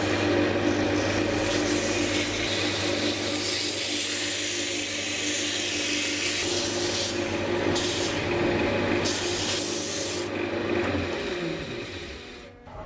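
Sandpaper rubbing against a glued-up block of coloured pencils spinning on a wood lathe, a steady scraping hiss over the lathe motor's hum. The sanding breaks off and stops about ten seconds in. The lathe then winds down, its hum falling in pitch until it stops near the end.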